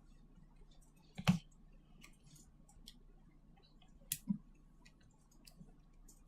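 Small hard clicks and taps of the phone's plastic case parts being handled and fitted back together: one sharp click a little over a second in, a quick double click about four seconds in, and faint ticks between.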